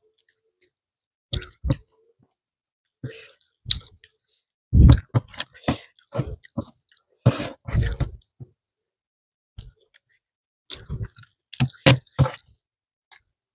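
Close-miked eating sounds: a person chewing and smacking food in the mouth, as irregular short clicks and smacks, loudest in the middle.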